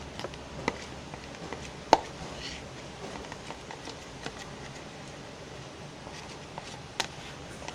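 Scattered light knocks and clicks of a utensil against a bowl as glue and powder-detergent slime is mixed. The sharpest knock comes about two seconds in and another near the seven-second mark.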